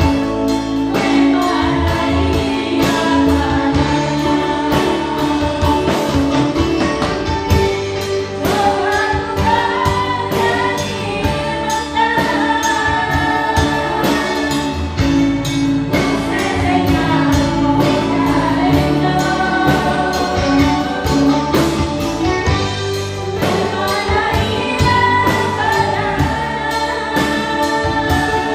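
Live band music with women singing together through handheld microphones, over a drum kit keeping a steady beat.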